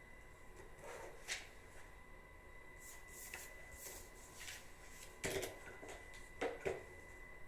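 Scattered soft rustling with a few short knocks: one about a second in, a cluster in the middle, and the loudest two past the middle. A faint steady high whine runs underneath.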